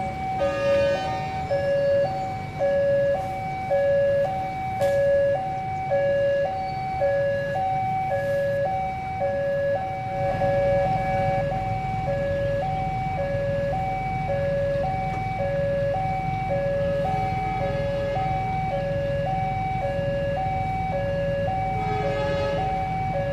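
Railway level-crossing warning alarm sounding, a two-tone electronic ding-dong repeating over and over to warn that a train is coming. A low steady hum grows stronger about ten seconds in.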